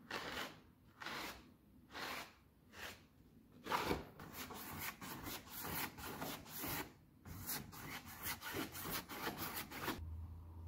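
Rhythmic rubbing strokes of a hand tool against a rough surface, about one a second at first, then quicker and closer together. A low hum comes in near the end.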